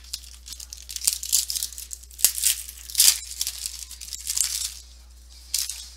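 A stack of Topps Fire football trading cards being flipped through by hand: repeated quick swishes of cards sliding over one another, with a few sharp snaps.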